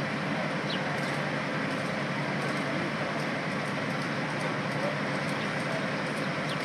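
Steady running of a vehicle engine, an even mechanical rumble that does not change, with a few faint short high chirps on top.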